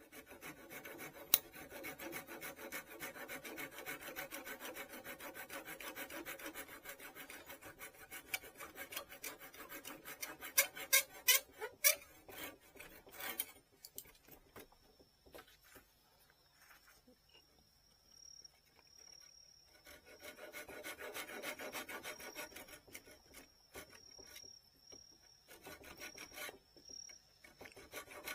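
Rapid abrasive rubbing strokes on the node of a bamboo rod section, wearing down the leftover stub of a badly trimmed node. A few sharp taps come near the middle, then a pause with a faint steady high whine, before the rubbing starts again.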